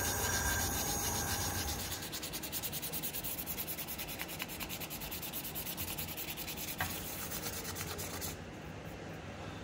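Abrasive rubbing on a knife in rapid, even back-and-forth strokes, starting about two seconds in and stopping about eight seconds in.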